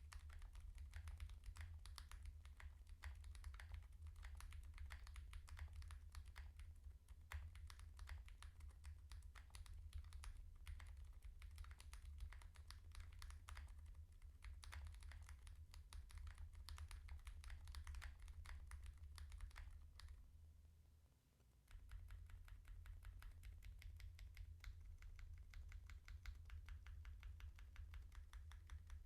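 Steady typing on a mechanical keyboard with stock Gazzew x Smith + Rune U4Tx Plum tactile switches in a TKL board with an FR4 plate and Poron foam, giving a fast run of key clacks. The typing stops for about a second and a half near the two-thirds mark, then picks up again, over a steady low hum.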